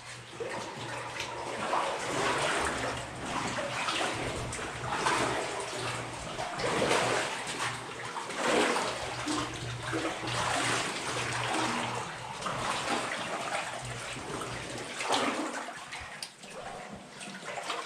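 Knee-to-waist-deep water sloshing and splashing around wader-clad legs as a person wades through a flooded mine tunnel, surging with each stride about once a second.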